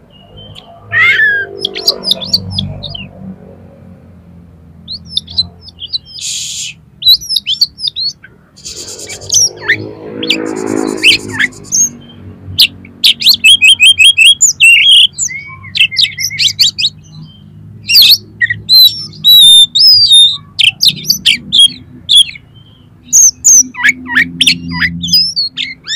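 Oriental magpie-robin (kacer) singing a varied run of loud whistled phrases, chirps and trills, with harsh buzzy notes mixed in and a lower, coarser sound about ten seconds in.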